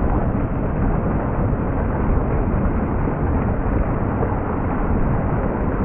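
Fast mountain stream rushing and splashing over boulders: a loud, steady rush of water.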